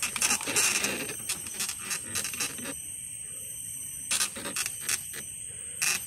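Small clicks and scrapes from handling a PCP air rifle, with a few sharp clicks about four seconds in and again near the end, over a steady high-pitched drone.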